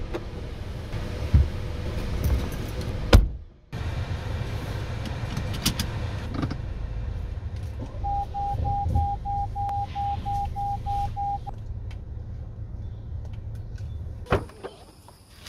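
Car heard from inside the cabin: a steady low rumble with scattered clicks and knocks. A little past the middle, a dashboard warning chime gives about a dozen quick, even beeps at about three a second. A knock comes near the end, and the rumble then drops away.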